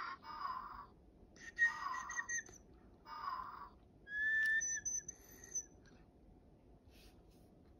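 Digi Penguins toy penguins giving electronic chirps and whistle-like tweets, in about five short bursts of under a second each, one of them a steadier held whistle tone about four seconds in, then falling quiet.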